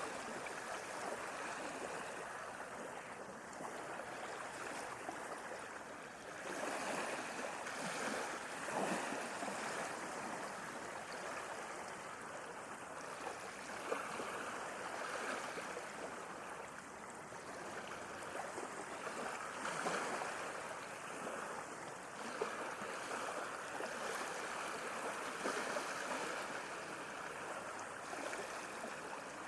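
Sea waves washing on a shore: a continuous rush of water that swells and eases every few seconds.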